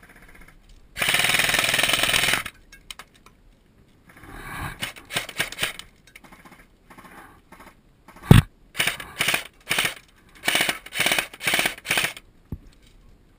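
Airsoft electric gun firing on full auto: one long burst of about a second and a half, then a string of short bursts over the last few seconds. A single heavy thump comes just before the short bursts.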